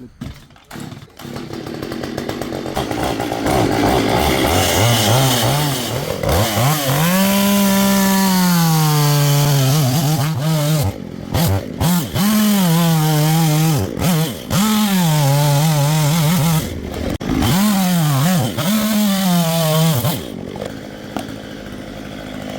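A two-stroke Stihl chainsaw running. It builds up over the first few seconds, then revs high about five times with short dips between, and drops back to a lower idle near the end.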